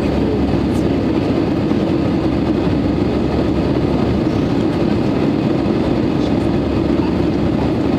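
Steady, loud cabin noise of an Airbus A320 in flight, heard from a window seat over the wing: the twin turbofan engines and rushing airflow make an even, unbroken drone.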